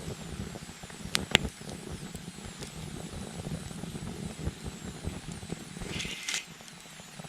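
Wood campfire burning and crackling, with two sharp pops about a second in and a short hiss a little after six seconds, over a steady low rumble that drops away just after the hiss.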